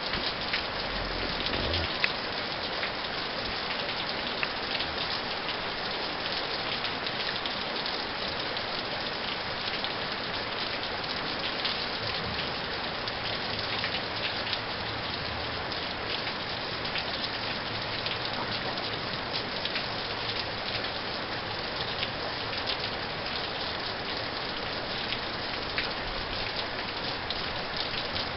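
Steady heavy rain falling and hitting surfaces, with a constant hiss and many scattered drop ticks.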